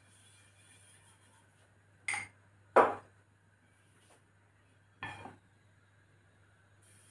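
Three short clatters of a crêpe pan and kitchen utensils being set down and picked up, the second, a little under three seconds in, the loudest.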